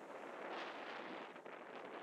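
Wind on the camera microphone: a steady rushing noise with no distinct tones.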